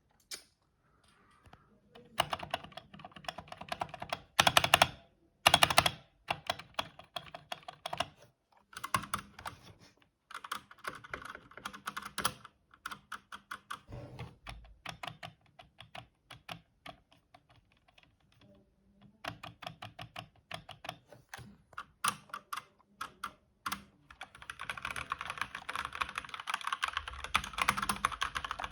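Stock mechanical keyboard being typed on: runs of rapid keystroke clicks broken by short pauses, two loud clusters of heavy strikes around four and five seconds in, and a continuous fast run of typing near the end.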